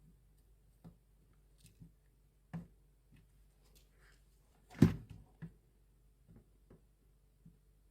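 Light clicks and taps from fan parts or tools being handled during a fan motor repair, spaced irregularly. About five seconds in comes one louder knock.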